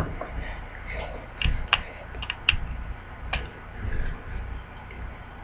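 Several scattered sharp clicks at a computer desk, about six in all between one and three and a half seconds in, over a faint low hum.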